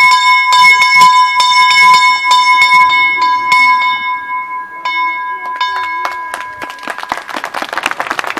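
Small bell in a stone bell pillar rung with a rope, its clapper striking about twice a second over a steady ringing tone. The strikes thin out to a few last ones and the ringing fades about six seconds in, and applause starts near the end.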